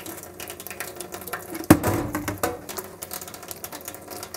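Kitchen knife chopping on a cutting board: a quick, uneven run of clicks and taps, with one louder knock a little under two seconds in.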